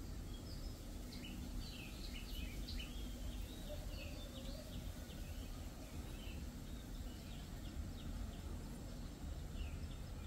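Outdoor woodland ambience: small birds chirping in quick, scattered calls, busiest in the first half, over a steady low background rumble.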